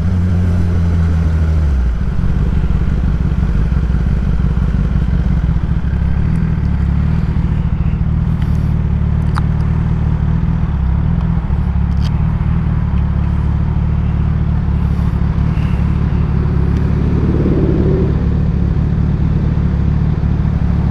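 Kawasaki ZX-10R inline-four with a Graves race exhaust, revs dropping and settling to a steady idle in the first couple of seconds, then idling evenly with a few faint clicks.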